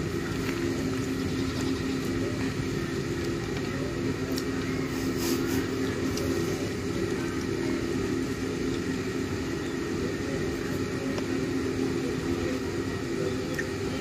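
A motor running steadily: a low, even hum that holds one pitch throughout, with a few faint clicks.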